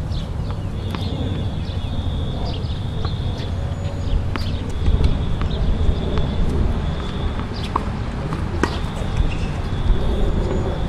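Tennis balls struck by rackets and bouncing on the court, sharp pops every second or two, over a steady low rumble and an on-and-off high whine.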